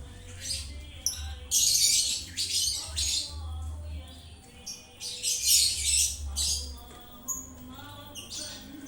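Caged birds calling in shrill, scratchy bursts, several times over, with a few thin whistled notes between them and a low rumble underneath.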